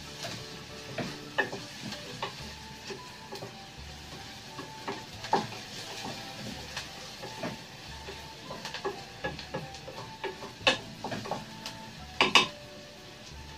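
Wooden spoon stirring chopped onions frying in a metal pan: a low steady sizzle with irregular knocks and scrapes of the spoon against the pan, the loudest two knocks near the end.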